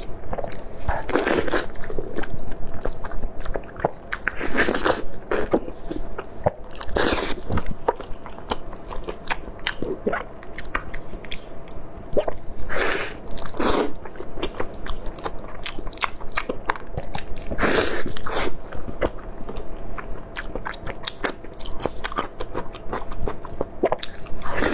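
A person biting and chewing braised pig's trotters close to a lapel microphone, with louder bursts of mouth noise every few seconds over a faint steady hum.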